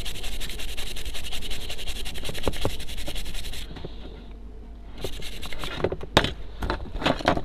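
Fast, even, scratchy rubbing from hands working a set-top box circuit board; it stops about three and a half seconds in. A few sharp clicks and knocks follow as the board and the box's metal chassis are handled.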